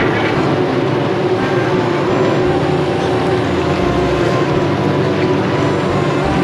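Fish deep-frying in a karahi of hot oil: a steady sizzle, heard under background music with a low bass line.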